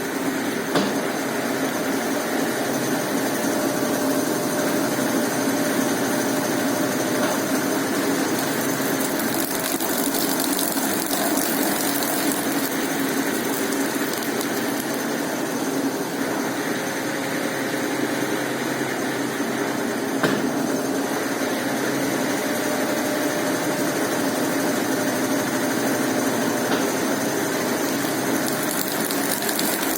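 Brastemp Ative 11 kg washing machine running steadily through its spin cycle, a continuous mechanical hum with a few faint clicks.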